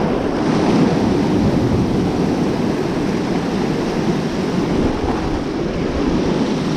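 Sea surf washing and breaking over a rocky shoreline, a steady rushing noise mixed with wind on the microphone.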